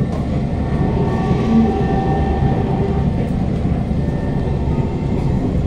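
Steady running noise inside a Kawasaki Heavy Industries C151 metro train (GTO-VVVF variant) in motion: an even rumble of wheels on track, with a faint steady whine from the traction motors.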